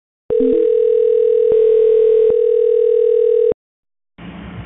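Telephone line audio from a conference bridge: a steady call-progress tone lasting about three seconds, with a short rising two-note join chime near its start and a second, slightly lower tone joining briefly in the middle. The tone cuts off, and faint line hiss comes in near the end.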